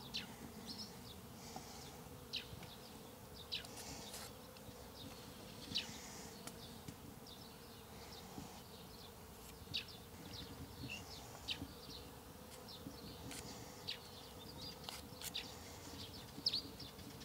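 Quiet outdoor ambience: insects buzzing faintly and steadily, with scattered short, high-pitched chirps every second or two.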